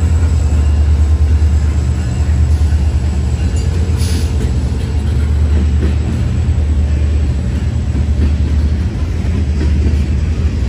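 Freight train rolling past at close range, its cars making a steady heavy low rumble, with a brief high hiss about four seconds in.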